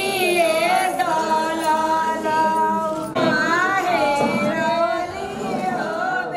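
Singing with long, drawn-out notes that bend in pitch, over music.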